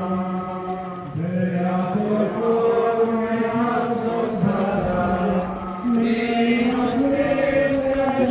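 A group of pilgrims chanting a prayer or hymn in unison as they walk, in long held notes that change pitch every second or so.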